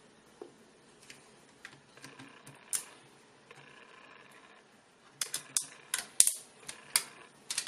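Protective film being peeled off the plastic screen of an ISDT C4 battery charger. A few faint isolated clicks come first, then from about two-thirds of the way in a quick run of sharp crackling ticks.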